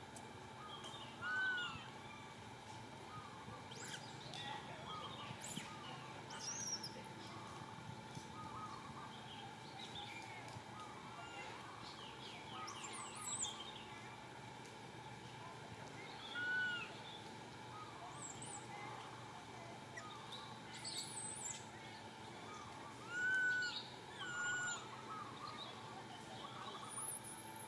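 Outdoor bird chirping and calling throughout, with a few louder short rising-and-falling calls standing out: one about a second and a half in, one around the middle, and two close together near the end.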